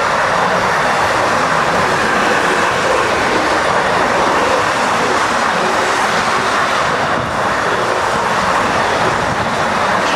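Freight train of empty double-deck car-carrier wagons passing at speed, its wheels on the rails making a loud, steady rushing rumble.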